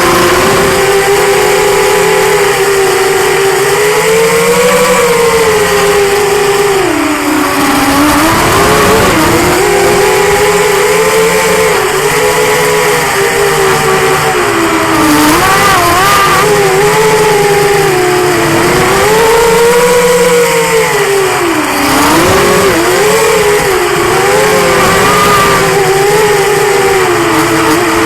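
QAV210 FPV quadcopter's four 2204 2300Kv brushless motors and propellers whining loudly, the pitch rising and falling continuously with the throttle. Twice, about a third of the way in and again near the end, the pitch drops sharply and climbs back.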